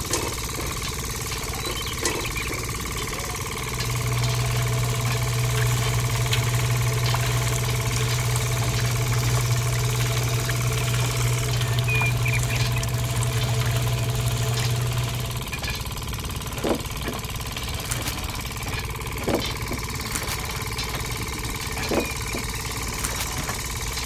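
A small motor runs with a steady mechanical hum. It drives a miniature model juicing machine. A louder low hum comes in about 4 seconds in and stops after about 11 seconds, and a few light knocks follow near the end.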